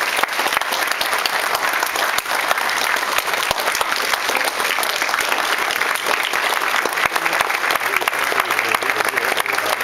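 Audience applauding: many hands clapping together in a dense, even patter at a steady level.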